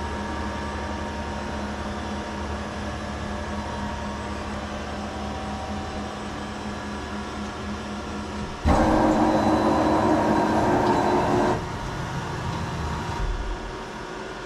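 CNC vertical mill running at the end of its program, the tool lifted clear and no longer cutting: a steady machine hum with a low tone, then about nine seconds in a much louder, rough mechanical whirr for about three seconds, before it drops back and eases off near the end.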